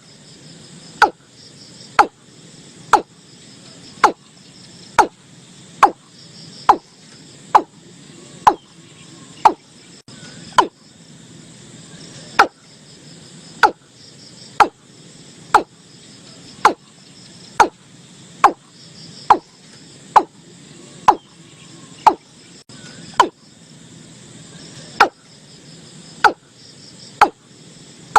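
Watercock calling: a short, sharp note repeated about once a second, with a few slightly longer gaps, over a steady faint chirping of insects.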